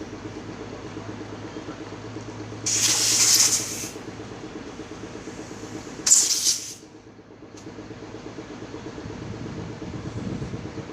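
Two loud bursts of compressed air hissing, the first about a second long, the second shorter and sharper, over a steady mechanical hum that fades after the second burst.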